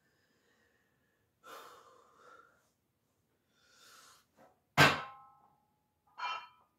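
Two sharp breaths as the lifter braces, then a little before five seconds in a loud metal clank with a short ring as the loaded barbell comes off the rack's hooks, followed by another short breath.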